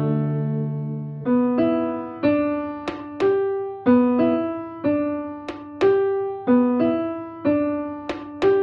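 Background music: a held chord that fades, then a melody of short keyboard notes, about two a second, from about a second in, with a few sharp ticks.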